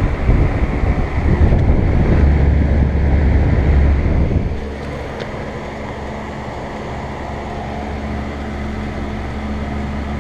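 Old Lennox central air conditioner condenser unit running with a steady electrical hum. A heavy low rumble over the first four and a half seconds then drops away, leaving the steadier hum.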